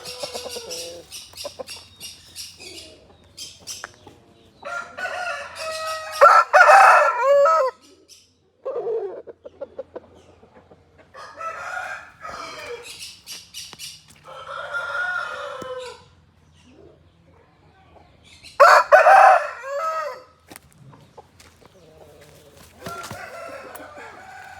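Rooster crowing, loudest about six seconds in and again about nineteen seconds in, with softer clucking calls between.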